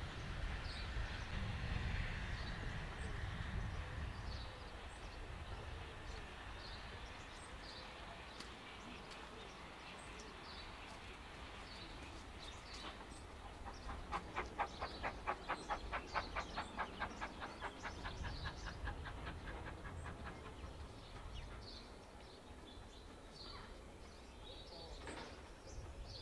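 A train's rumble fades away over the first few seconds, leaving outdoor ambience with birds chirping. Midway, a fast, evenly spaced pulsing lasts about six seconds.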